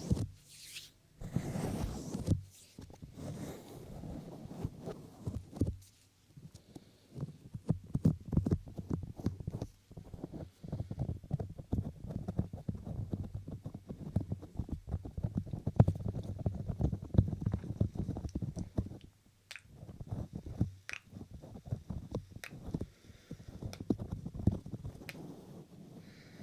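Close-up touching and rubbing on a binaural microphone: rapid crackly rustling and soft low thumps, pausing briefly a few times, with a few sharper clicks near the end.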